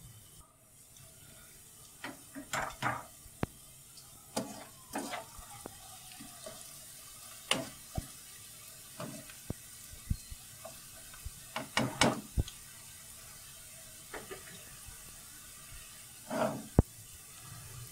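A metal wire skimmer scraping and clinking irregularly against a nonstick wok as onion slices are stirred and lifted out of hot oil, over a faint steady sizzle of frying.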